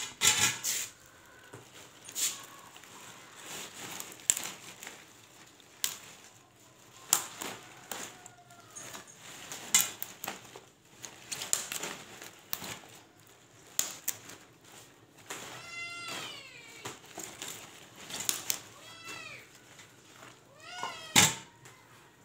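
A cat meowing several times, the calls mostly in the second half. Irregular clicks and knocks run through it from leaves and stalks being handled over a steel bowl, the loudest a sharp knock near the end.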